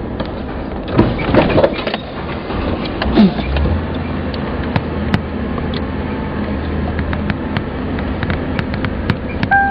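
Car driving along a street, heard from inside the car: engine and road noise with knocks and rattles about a second in and a thump about three seconds in, then a steady low engine drone. Near the end a keyboard tune begins.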